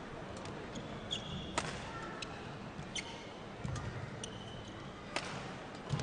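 Badminton rally: three sharp racket strikes on the shuttlecock, about a second and a half apart. Between them come short high squeaks of court shoes and thuds of footfalls and lunges on the court mat, over a steady hall background.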